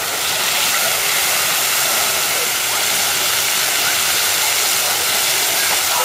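Fountain water jets spraying and falling back into a shallow pool: a steady, loud hiss of rushing and splashing water.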